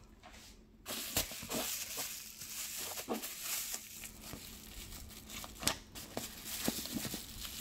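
White tissue paper crinkling and rustling as it is pulled off a backpack strap, with many sharp crackles, starting about a second in.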